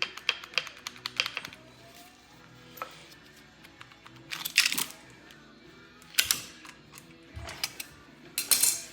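Metal clinks and rattles from the timing chain and cam gear of a 5.7 Hemi as they are worked off with channel-lock pliers, in several short clusters: at the start, around the middle, and near the end. Quiet background music plays under them.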